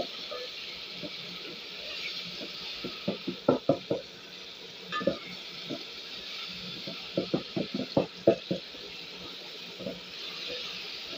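Wooden spoon stirring and scraping chopped tomatoes and onions in an aluminium pot, in several bursts of quick strokes, over the steady hiss of them frying in oil.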